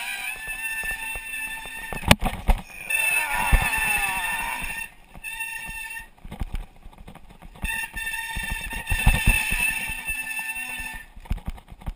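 Mountain bike riding fast down a rough dirt singletrack: the bike rattling and thumping over bumps, with a sharp knock about two seconds in and a high whine that comes and goes.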